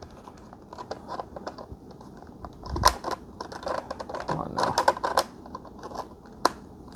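Hard plastic parts of a Eureka Elivate cordless stick vacuum being handled and fitted back together: scattered clicks and knocks, a duller thump about three seconds in, and a sharp single click near the end as a part is pressed into place.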